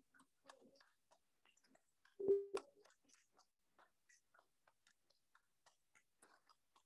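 Faint hand clapping: a quick, thin string of light claps, about four a second. About two seconds in there is one louder knock with a short hum.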